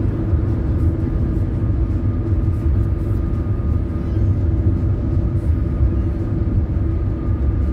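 Inside a car driving at highway speed: a steady low rumble of road and engine noise with a faint steady hum, unchanging throughout.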